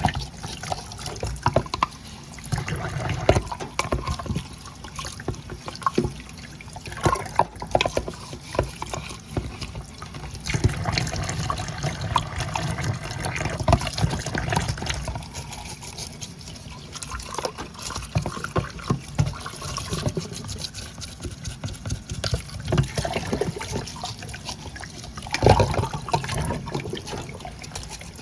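Water draining from a kitchen sink with irregular gurgling and glugging pops in the drain pipe: the sign of a drain pipe fouled with grime and close to clogging.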